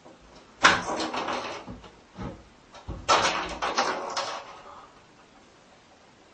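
A cat scrambling about in an empty bathtub, its paws scrabbling and knocking on the tub in two rough spells of about two seconds each, the first about half a second in and the second about three seconds in.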